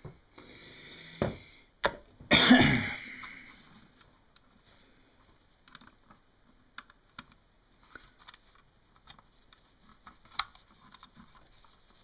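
Small, scattered plastic and metal clicks and taps as a 2.5-inch SSD and its black mounting frame are handled, with a short cough-like throat sound a little over two seconds in.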